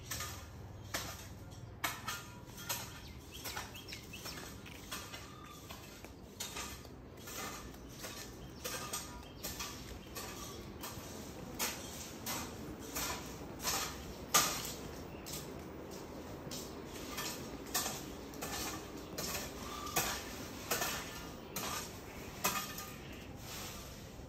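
Light clinks and knocks at irregular intervals, like objects being handled, with one sharper knock about halfway through.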